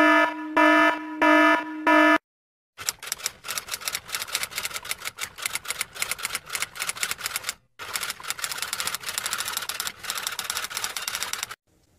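Four short electronic beeps, about two a second. After a brief pause come rapid typing clicks of keys, which run for several seconds with one short break in the middle.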